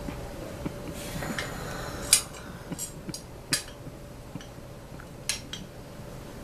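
Sharp metallic clicks and clinks, about five scattered across a few seconds, as the parts of an RV entry door lock are worked on by hand. The loudest comes about two seconds in, and a faint steady hum runs underneath.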